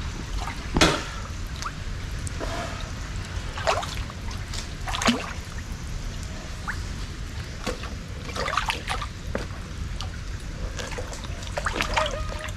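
Shallow canal water trickling and splashing, with a handful of separate louder splashes as someone gropes and wades in it.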